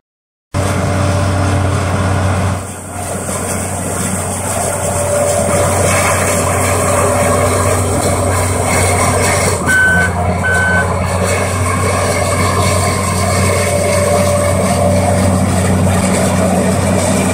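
Hitachi EX1200 mining excavator's diesel engine running steadily as it works, with a low hum. About ten seconds in come two short electronic beeps, a little under a second apart.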